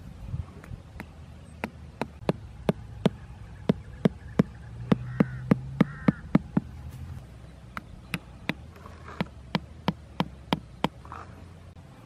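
Hammer driving a wooden stake into the ground: a run of sharp knocks about three a second, a pause of a second or so about halfway, then another run.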